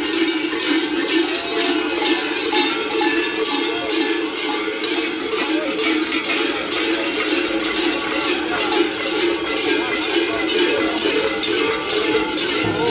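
Many large metal cowbells worn at the waist by a group of sheepskin-clad crai clanging together in a dense, continuous jangle as the wearers move.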